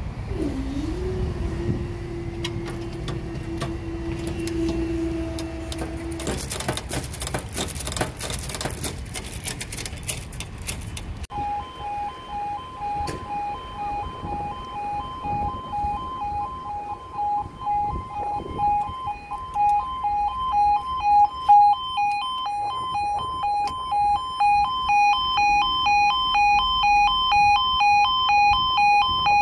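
Level crossing warning alarm, a fixed pair of electronic tones beeping in a steady fast pulse, growing louder, as the crossing lights show amber and then red ahead of the barriers lowering. Before it, for about the first eleven seconds, a low rumble with a steady hum and then rapid clicking, from a train at the crossing.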